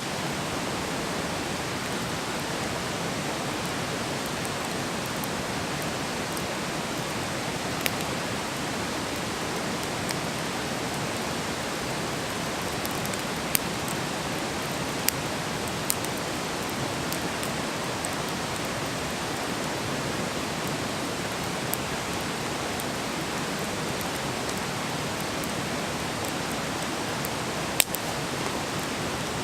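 Wood fire burning: a steady hiss with a handful of sharp, scattered pops and crackles, the loudest near the end.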